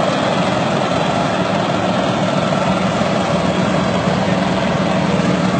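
A boat's engine running with a steady, unchanging drone.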